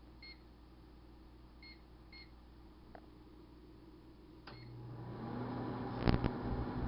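Touch-pad beeps of a 1978 GE Dual Wave microwave oven as the cooking time is keyed in: four short beeps. With the last one the oven starts running with a low steady hum, followed by a sharp click about six seconds in.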